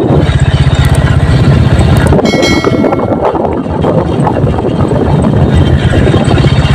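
Vehicle moving along an open road: continuous engine and road noise with heavy, fluctuating low rumble from wind buffeting the microphone. A brief faint high tone comes in about two and a half seconds in.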